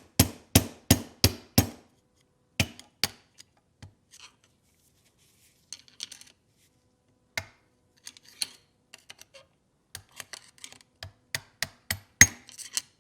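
Hammer tapping on metal, working a transfer case part into place: a quick run of about five strikes, two more a second later, scattered lighter clicks, then another run of strikes near the end, the last one loudest.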